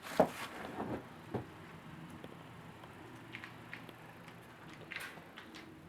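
A few sharp knocks and rustles of handled gear in the first second and a half, then a faint steady hum under light scuffs, with a brief rustle about five seconds in.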